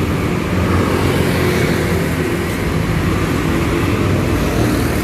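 Street traffic noise: a steady rumble of passing cars and engines.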